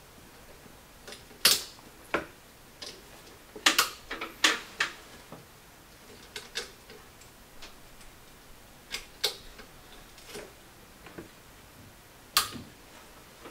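Irregular metal clicks and light knocks of an Atibal T.P.M quick-detach 30mm scope mount being handled and seated onto a rifle's Picatinny rail. There are about fifteen separate clicks, one of the sharpest near the end.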